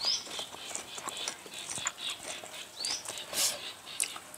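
Close-miked eating sounds: irregular crunching, smacking and mouth clicks while chewing, with two short high rising chirps, one at the start and one about three seconds in.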